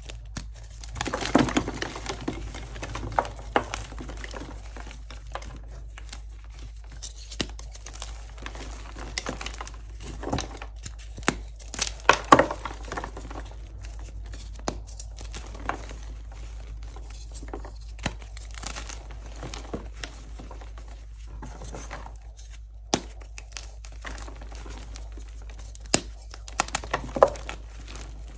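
Blocks of dyed gym chalk being snapped and crumbled by hand: a steady dry crunching and crackling of chalk and crumbs, broken by sharp cracks that are loudest about a second in, around the middle and near the end.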